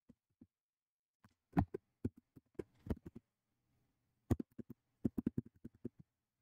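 Computer keyboard being typed on: two quick runs of key clicks, the first starting about a second in and the second about four seconds in.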